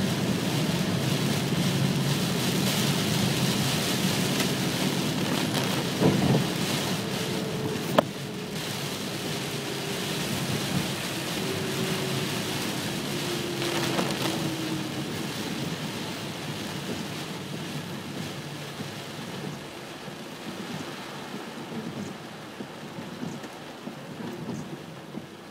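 Heavy rain falling on the car's roof and windshield, heard from inside the cabin as a dense, steady rush that slowly fades toward the end. A single sharp click about eight seconds in.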